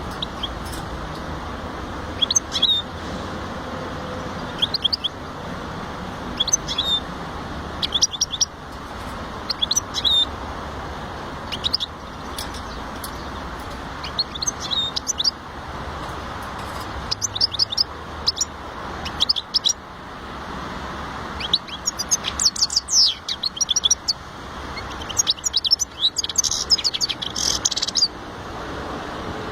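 European goldfinch singing: short bursts of quick, high twittering notes every second or two, the phrases running longer and denser near the end, over a steady background hiss.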